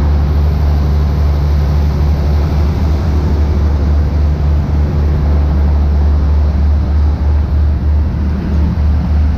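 Steady, loud low rumble of a diesel passenger train idling at the platform.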